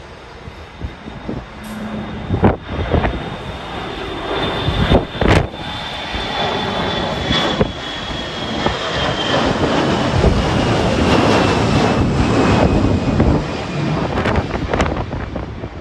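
Jet airliner passing, its engine whine sliding slowly down in pitch as the rumble swells and then eases, with gusts of wind buffeting the microphone.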